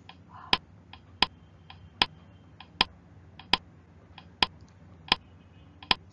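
A steady series of sharp clicks, about eight loud ones a little under a second and a half apart with fainter clicks between them. Each loud click comes as a counting number pops onto a candy in a slide animation.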